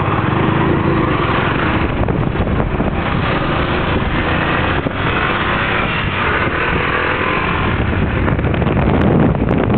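Motorcycle engine running steadily while riding along a road, with road noise mixed in.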